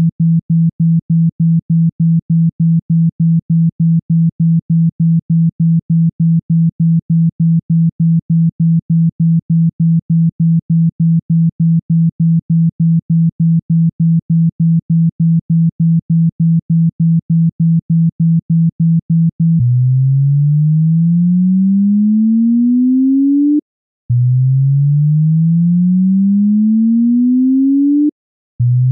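Synthesized water-eject tone for clearing water from a phone speaker: a low pure tone pulsing on and off about three times a second. About two-thirds through it changes to slow rising sweeps, each climbing in pitch for about four seconds, two in full with short gaps between them and a third starting at the end.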